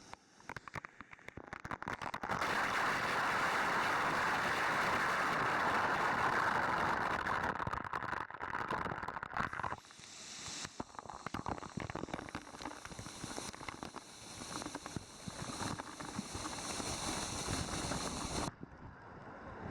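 Waterfall water rushing and splashing, heard close up; loudest from about two seconds in until about ten seconds in, then quieter and more crackly.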